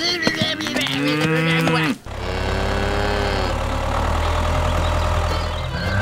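A cow mooing, a long call that bends and falls away, breaking off about two seconds in; then a tractor engine idling with a steady low rumble.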